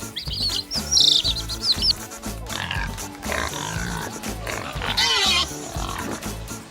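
Upbeat backing music with high, quick chirps in the first two seconds, then pig sounds, the loudest about five seconds in.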